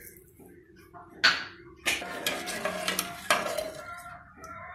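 Metal spoon stirring water and whole spices in an aluminium pressure cooker, clinking against the pot with several sharp knocks.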